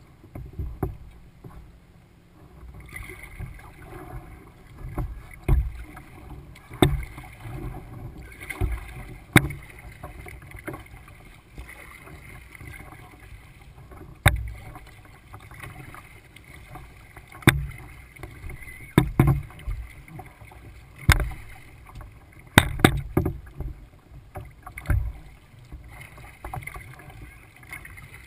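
Kayak being paddled: paddle strokes splashing every second or two, with sharp taps and low thumps between a steady wash of water along the hull.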